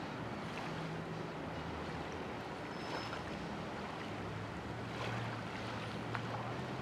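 Boat engine humming steadily under a wash of water and wind noise.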